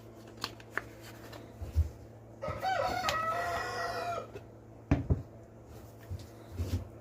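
A rooster crows once, one call of about two seconds near the middle that rises and then holds. A few light knocks and clicks come before and after it.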